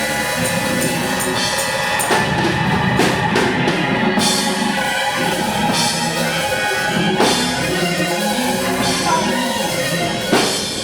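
Live gospel church band playing between the preacher's phrases: a drum kit beating out a steady rhythm under held organ chords, with several loud accented hits.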